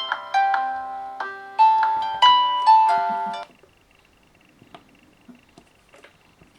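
A smartphone's melodic alert tone, a tune of short plucked-sounding notes, stops abruptly about halfway through. After it, only a faint, rapidly pulsing high beep and a few soft clicks remain.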